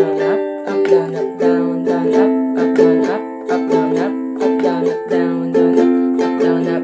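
Ukulele strummed steadily in a down-down-up-up-down-up pattern through the song's C, G, A minor and F chords, changing chord about a second in and again near the end.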